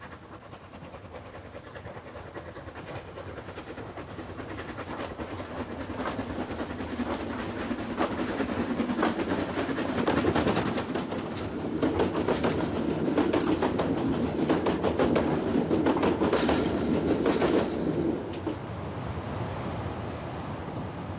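Narrow-gauge steam locomotive and its carriages approaching and passing close by, with wheels clicking on the rails. The sound grows louder over about twelve seconds, stays loudest for several seconds, then drops off sharply near the end.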